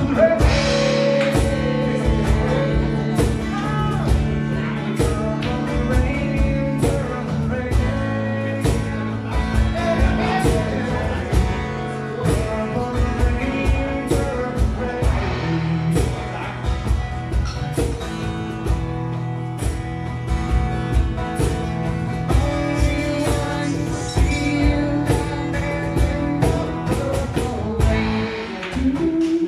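Live acoustic guitar strummed with percussion and cymbal accompaniment, and a man singing over it.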